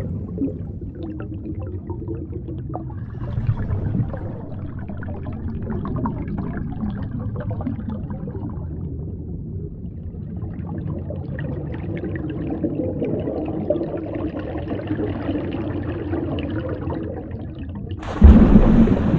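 Muffled underwater sound of water rushing and gurgling around a submerged camera, with fine crackling throughout. A sudden, louder and brighter rush of water starts near the end.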